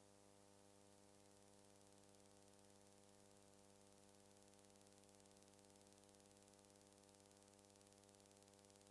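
Near silence: a faint, steady electrical hum with a hiss, unchanging throughout.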